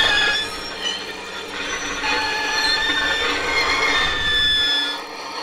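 Metal screeching: several drawn-out high squeals overlap at different pitches over a low grinding rumble, as a demolition excavator's jaws tear into a concrete building. The rumble drops away near the end while the squealing goes on.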